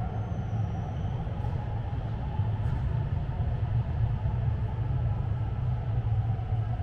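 Guangzhou Metro Line 18 train running underground: a steady, loud low rumble with a faint whine above it.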